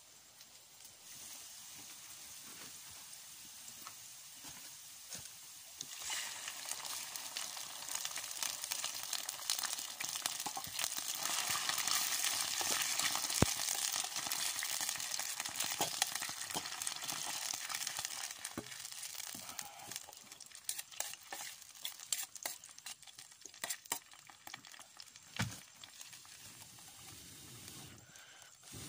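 Sliced onions and tomatoes sizzling in oil in a stainless steel pan, stirred so the utensil scrapes the pan. The sizzle builds from about six seconds in, is loudest around the middle, and fades toward the end to scattered clicks and scrapes.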